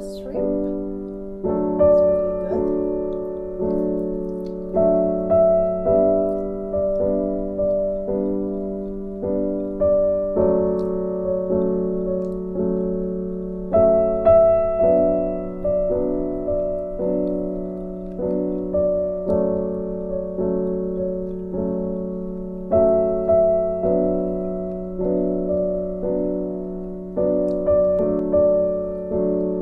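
Background piano music: gentle notes and chords that ring and fade, in a steady repeating pattern.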